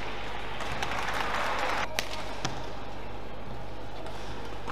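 Sharp cracks of badminton rackets striking the shuttlecock, over the steady hum of an indoor arena. About a second in, a short swell of crowd noise rises and cuts off suddenly, followed by two quick hits half a second apart.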